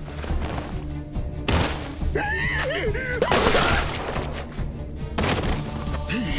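Tense dark background music over a steady low drone, with a sudden crash-like hit about a second and a half in, followed by a wavering pitched sound and a burst of noise.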